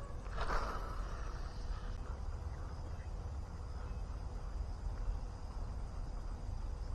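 Steady insect chirring over a low rumble of wind on the microphone, with a short noisy burst about half a second in.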